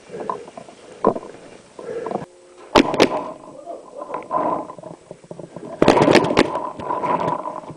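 Paintball marker shots: two sharp cracks close together about three seconds in, then a quick string of several more about six seconds in, with voices in between.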